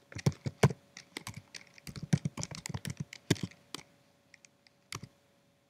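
Typing on a computer keyboard: a quick run of key clicks for about four seconds while a shell command is entered, then a few single keystrokes.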